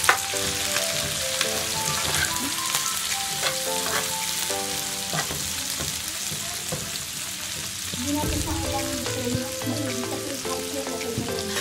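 Beef with freshly added bell peppers, onions and green chili sizzling in a hot wok as a spatula stirs them, scraping and knocking against the pan now and then. A tune of background music plays along.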